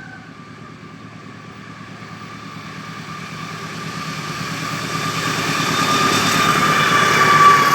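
A train approaching and growing steadily louder, with the low hum of its engine under a steady high whine whose pitch dips slightly as it comes close near the end.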